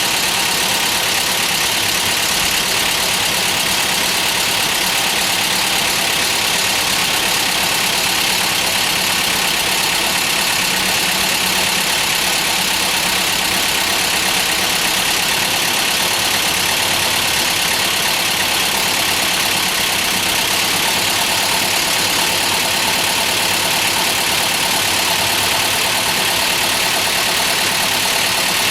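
Mazda B2200 pickup's 2.2-litre four-cylinder engine idling steadily. It is misfiring, still running on only two cylinders, with numbers 3 and 4 not firing right after a cylinder head install.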